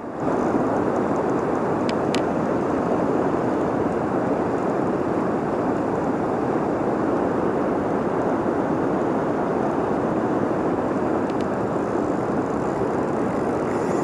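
Steady rushing of fast floodwater through the rapids below a dam, an even unbroken rush of water.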